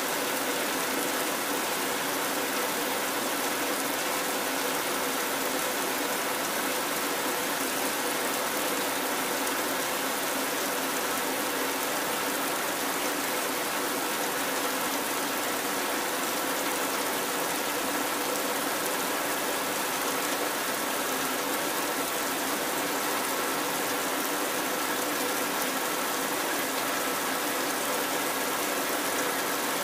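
Steady heavy rainfall, an even unbroken wash of noise with a faint steady hum running under it.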